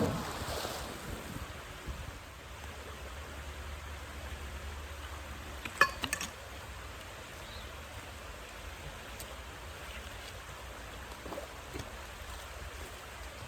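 Steady outdoor noise of wind and water by the waterside, broken about six seconds in by a short, sharp clink with a brief ring, then a smaller one just after.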